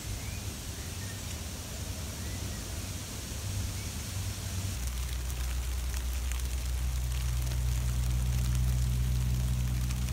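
Outdoor background hiss with a couple of faint chirps, joined about halfway by a steady low hum.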